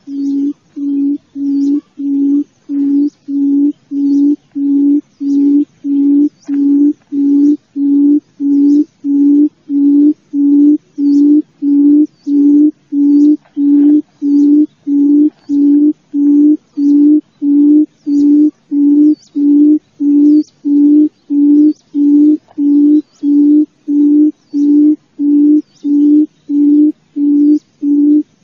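Wild quail calling: low hooting notes, evenly spaced at about one and a half per second, with a faint high tick at each note.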